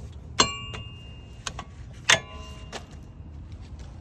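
Metal tools and brake parts clinking together: two sharp metallic clanks about a second and a half apart, each ringing briefly, with lighter clinks between.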